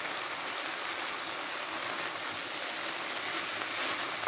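Vegetables and freshly added sliced button mushrooms sizzling steadily in a pan on low heat, with a few faint stirring clicks near the end.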